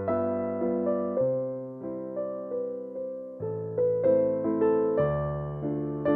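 Background music: a gentle keyboard melody, piano-like notes struck about twice a second and fading between strikes.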